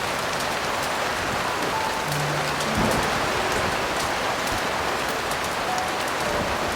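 Heavy rain falling steadily, with slow, soft piano notes over it and a brief low thump about three seconds in.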